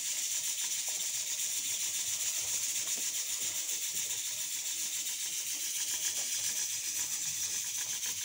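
A steady, even high-pitched hiss with no rhythm or break.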